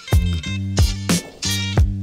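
Instrumental background music with a steady drum beat over a sustained bass line.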